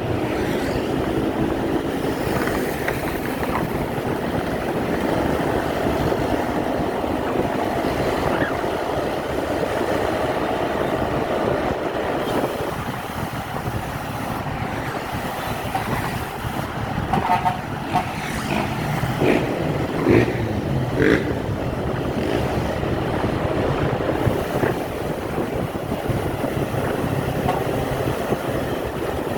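ALS intercity bus running steadily along the road. A few short horn toots sound about two-thirds of the way in.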